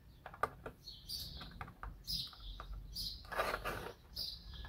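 Small clicks and knocks of hard plastic as a PVC figure is pressed onto its plastic stand, with a brief scrape about three and a half seconds in. A bird chirps about once a second in the background.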